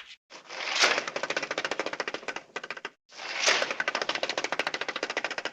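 Cartoon sound effect of rapid clattering: two runs of fast, even clicks, each lasting about two and a half seconds, with a brief break between them.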